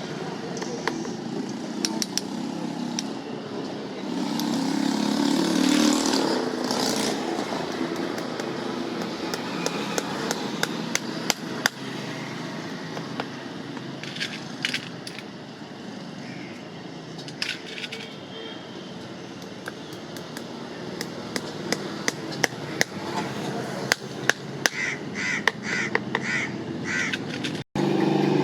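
Irregular sharp clicks and taps of farrier's tools working on a horse's hoof, over a background murmur of voices.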